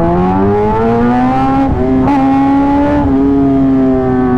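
Kawasaki ZX-10R's inline-four engine pulling under throttle. Its pitch climbs over the first second and a half, then holds nearly steady with a brief break about two seconds in, and eases off slightly near the end.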